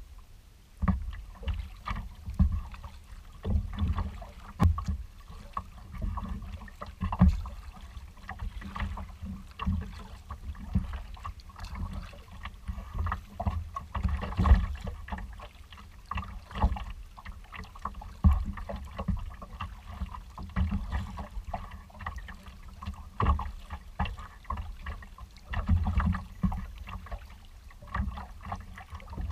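Water slapping and sloshing against a kayak's hull as it moves over choppy water, in uneven surges about once a second with a heavy low rumble.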